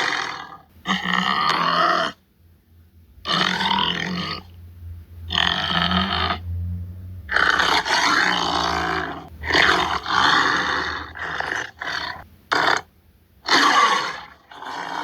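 Tiger roaring and grunting in a run of rough calls, each about a second long, with short pauses between them.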